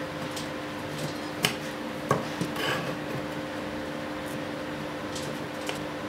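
Wooden dowels being worked into drilled holes in the wooden end panels of a bird feeder: a sharp wooden knock about a second and a half in and another about two seconds in, then a brief scraping of wood on wood, and a few faint ticks near the end. A steady low hum runs underneath.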